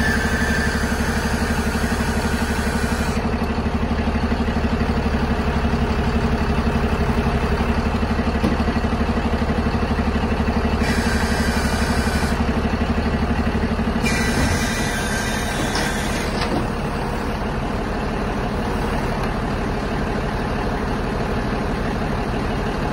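Diesel engine of a crane truck running steadily while its hydraulic crane lowers a heavy load, with a high whine coming in twice. About fourteen seconds in there is a short hiss and the engine settles to a slightly lower, quieter run.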